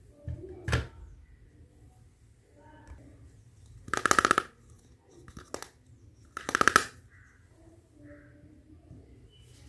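Small plastic toy kitchen pieces handled and set down on a table: a sharp click under a second in, then two short bursts of rapid plastic clicking and rattling, with a brief one between them.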